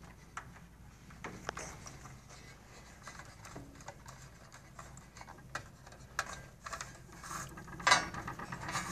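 Scattered light clicks and rustles of a wire being fed along the channel of an infrared barrier tower and pressed under its plastic wire clips, with a louder rustle near the end.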